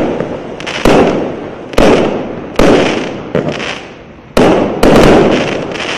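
An 80-shot consumer firework cake with 0.8-inch tubes firing in sequence. There is a sharp bang roughly every second, each fading off behind it, with a brief lull past the middle and then two bangs close together.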